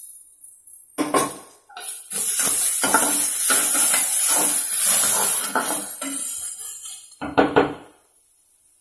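A metal slotted spoon scraping and knocking against a steel kadhai as chopped tomatoes are stirred into frying vegetables, over a steady sizzle of hot oil. Louder knocks come about a second in and near the end, and the stirring stops about a second before the end.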